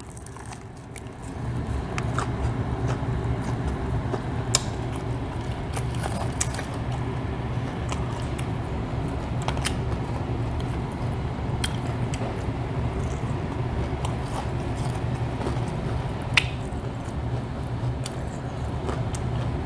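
A person biting into and chewing fried chicken close to the microphone, with a few sharp crunches, over a steady low hum that comes up about a second and a half in.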